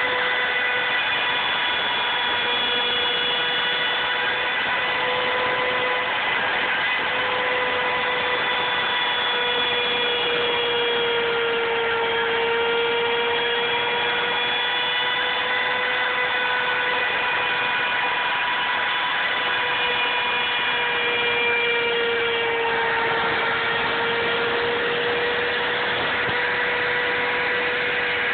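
Router spindle of a Bluumax CNC router running with a steady high whine while its 1/8-inch two-flute carbide straight bit engraves letters into wood. The pitch sags slightly twice, about halfway through and again near the end, as the bit takes load.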